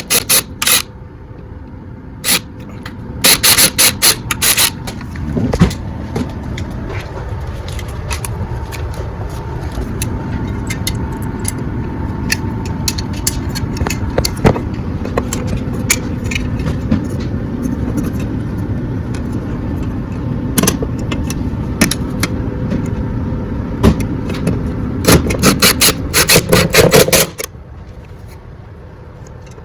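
Power drill driving screws into the wall, its motor running in long steady stretches, with bursts of sharp rapid clicking near the start and again near the end.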